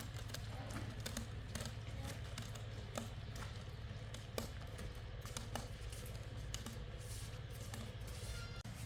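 Scattered light taps and knocks at irregular intervals, one a little louder just under halfway through, over a steady low hum.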